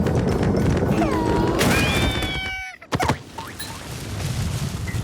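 Cartoon sound effects over a busy soundtrack: a pitched tone that dips, rises and holds, then the sound cuts out suddenly and a sharp hit lands about three seconds in.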